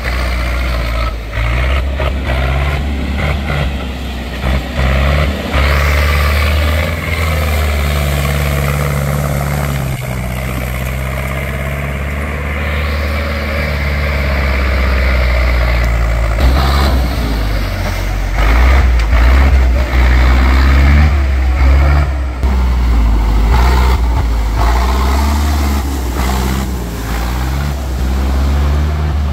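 Zetor tractor diesel engines running hard under load, the revs rising and falling as the tractors drive through mud.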